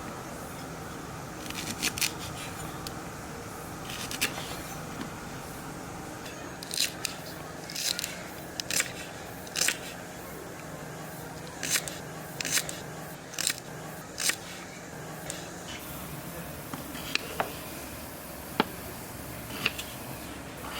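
Scissors snipping: about a dozen short cuts at irregular intervals, over a steady low background.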